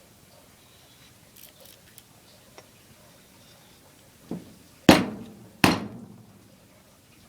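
Knife blade chopping into something: a few faint ticks, then a lighter knock followed by two hard chops less than a second apart, each with a short decay.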